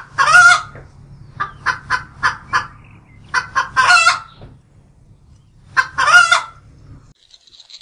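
Domestic hens cackling: three runs of short clucks, each ending in a longer drawn-out squawk, over a low steady hum that stops about seven seconds in.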